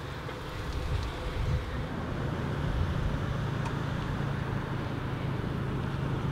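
A motor vehicle engine running with a steady low hum, over general road-traffic noise; the rumble swells briefly between one and two seconds in.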